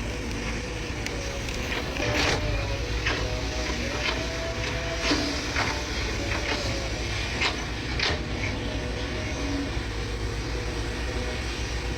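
SANY hydraulic excavator working, its diesel engine running steadily under a wavering hydraulic whine, with several sharp knocks between about two and eight seconds in.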